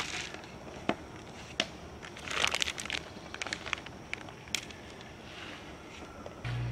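Plastic bag of shredded cheese crinkling and rustling in short irregular bursts as it is handled. Near the end a steady low hum sets in.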